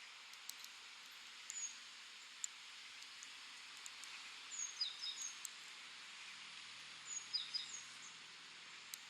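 Birds chirping in short, downward-sliding calls, in two quick clusters around five and seven seconds in, over a steady outdoor hiss. A few sharp clicks sound now and then.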